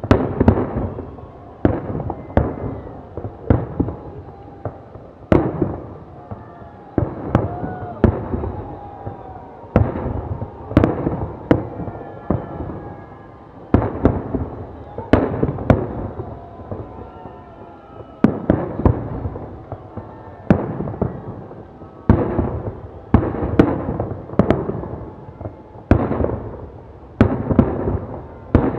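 Fireworks display: aerial shells bursting in quick salvos, sharp bangs every second or so, each trailing off in a rumbling echo.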